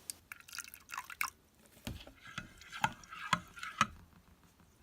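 Slime being stirred in a bowl as glue and borax activator mix: a run of irregular wet, sticky clicks and squelches, several a second.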